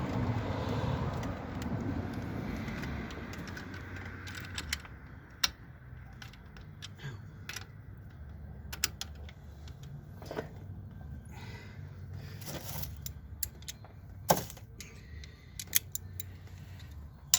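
Hand tools and fasteners being worked onto a throttle-body bracket in an engine bay: rustling handling for the first few seconds, then scattered sharp metallic clicks and clinks of a socket and nut going onto the bolts.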